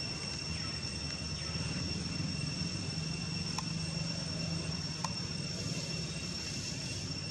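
Insects droning steadily at two high pitches, over a low steady rumble. Two faint clicks come a second and a half apart, around the middle.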